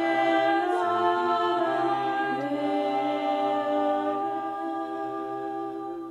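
Several voices singing a hymn canon unaccompanied, on long held notes that grow quieter toward the end.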